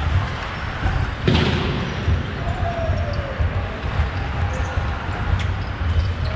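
A single sharp hockey puck impact about a second in, over a steady low rumble on the ice rink, with a few faint clicks and scrapes around it.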